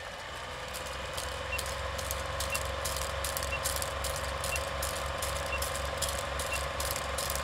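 Old film projector sound: a steady mechanical whir with a fast low flutter, scattered crackle and pops of worn film, and a faint short tick about once a second in step with the countdown.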